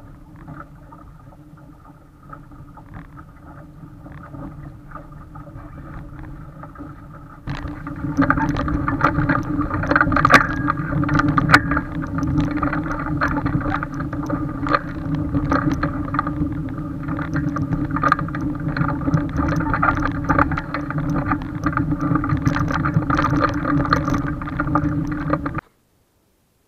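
Water rushing and splashing along a small sailing dinghy's hull, with wind buffeting the camera microphone mounted on the boat. It jumps much louder about a quarter of the way in, with many small splashes and knocks, and cuts off abruptly just before the end.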